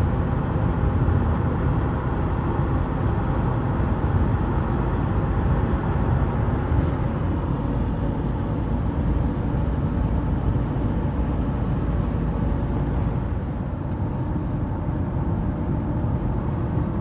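Ford Transit van driving at a steady speed, heard inside the cab: a continuous low engine and road rumble from its studded winter tyres on tarmac.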